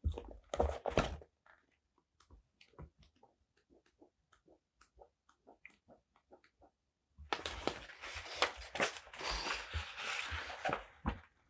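Close-miked paper and sticker handling for journaling: a brief rustle, then scattered soft taps and clicks, then continuous crinkling paper rustle from about seven seconds in.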